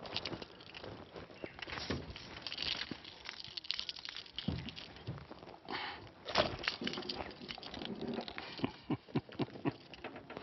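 Irregular clicks, knocks and rustles of handling a peacock bass held in a lip gripper, with two stronger knocks around the middle.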